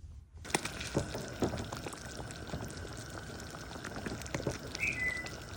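A pot of arroz caldo (chicken rice porridge) bubbling on the stove: a steady hiss full of small pops and crackles, starting suddenly about half a second in.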